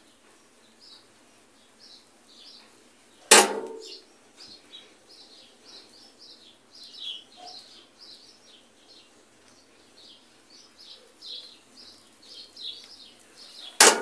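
Two sharp mechanical clicks from a Whirlpool top-load washing machine as its wash cycle starts, one about three seconds in and one near the end. Birds chirp rapidly and steadily in the background.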